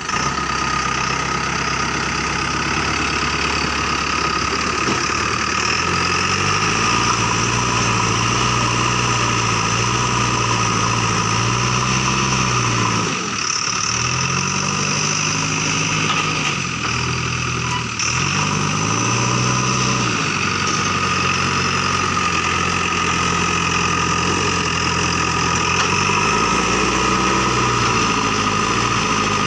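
JCB 3DX backhoe loader's diesel engine running under changing load, its note sagging and climbing back several times as it works, with a steady higher whine over it.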